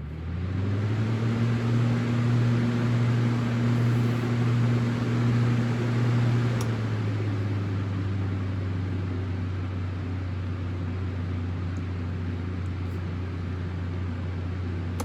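Lakewood Kool Operator electric fan starting up and running, a steady motor hum under a rushing blade buzz, the 'high band noise' typical of the 1993 blade set without reinforcing ridges. About six and a half seconds in, the higher hum fades and the fan gets a little quieter.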